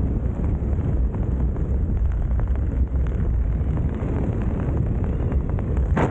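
Airflow buffeting the microphone of a camera flying under an open parachute canopy: a steady, heavy low rumble, with one short sharp crack near the end.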